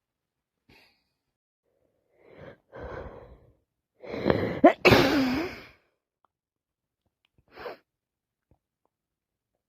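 A woman with a head cold catching her breath a few times, then one loud, voiced sneeze about four to five seconds in, and a short sniff near the end.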